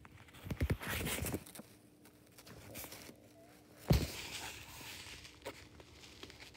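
Handling noise from a paperback book and the phone filming it: rustling and scraping of paper and fingers for about a second, then one sharp knock about four seconds in as the phone is jostled.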